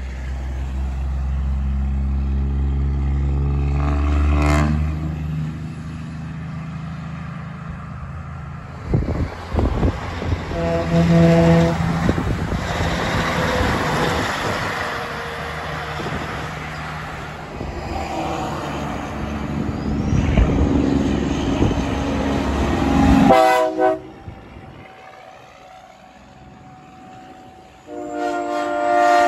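Diesel semi-truck engines running as the trucks pull away and pass, with several blasts of a multi-tone truck air horn: a short rising one about four seconds in, others about eleven and twenty-three seconds in, and one at the very end.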